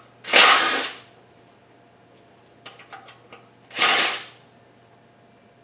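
Two short bursts of a power tool, each under a second, with a few light clicks of handling between them.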